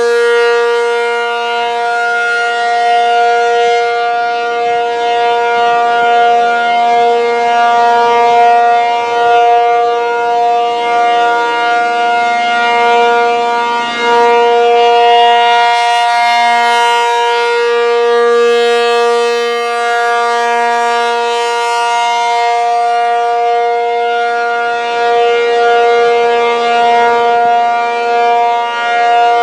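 ACA P-50 outdoor warning siren, running on 480 V, sounding a steady Alert tone for a scheduled test. The pitch holds level while the loudness swells and dips slightly.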